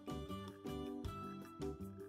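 Soft background music: a steady run of short instrumental notes.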